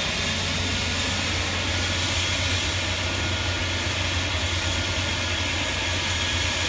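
Eurocopter EC135 rescue helicopter running on the ground with its rotor turning before lift-off: a steady low rotor drone under a constant high turbine whine.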